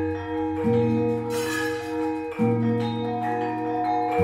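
Javanese gamelan playing: bronze metallophones and gongs ring in long, overlapping tones, with a new low note struck about every two seconds.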